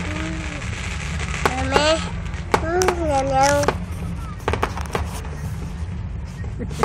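Aerial fireworks bursting overhead: an irregular run of sharp bangs and crackles, now and then several in quick succession. A few drawn-out pitched vocal sounds come in among them, loudest about three seconds in.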